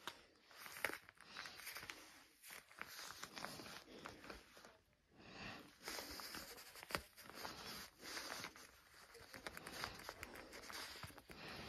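Faint, irregular rustling and crinkling of vinyl leggings handled and rubbed by hand, with scattered small clicks.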